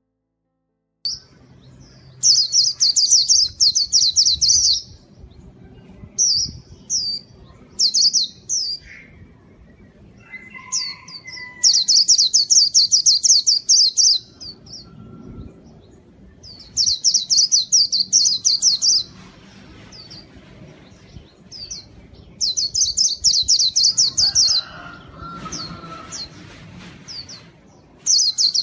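White-eye (pleci) singing in rapid, high twittering bursts of two to three seconds, five times over, with short chirps in between. It starts about a second in. This is the full, vigorous 'gacor' song.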